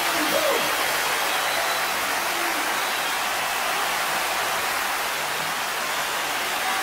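Large concert crowd cheering and applauding: a steady, dense wash of noise with no music playing, and a faint shout near the start.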